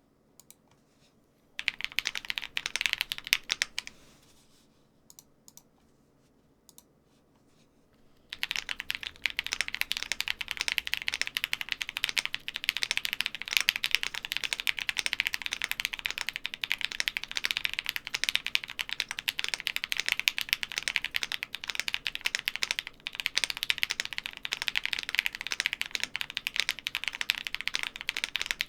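Typing on a 60% mechanical keyboard with KTT Kang Ash Gray tactile switches in a steel plate, fully foamed. A few single key presses and a short burst of typing come first, then a pause, and from about eight seconds in a steady run of fast typing.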